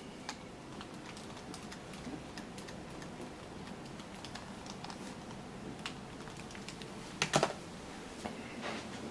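Scattered light clicks and taps, like typing on a keyboard, with a louder cluster of clicks about seven and a half seconds in.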